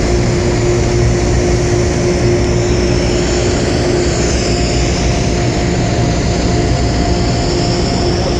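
Diesel locomotive engine running steadily, heard from inside its cab as a loud, even drone with a steady hum.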